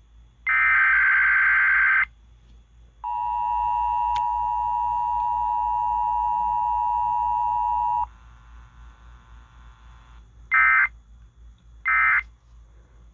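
Emergency Alert System test tones received over the radio: two long bursts of SAME digital header tones, then about five seconds of the steady two-tone EAS attention signal. After a pause come three short end-of-message data bursts.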